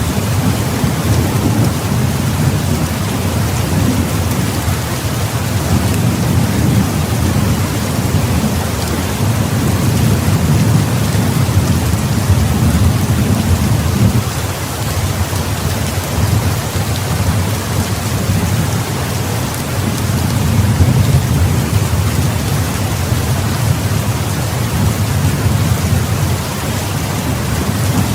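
Heavy rain falling steadily, with a low rolling rumble of thunder that swells and eases several times underneath it.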